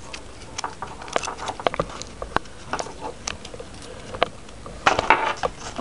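Irregular light clicks and taps from handling small plastic hardware, with a denser cluster about five seconds in.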